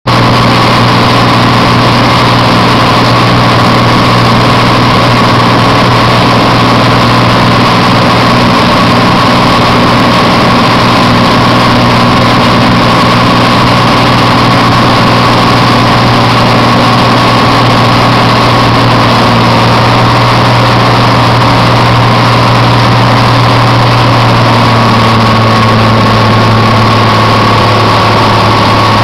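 Light airplane's engine running with a steady, loud drone, heard from inside the cockpit.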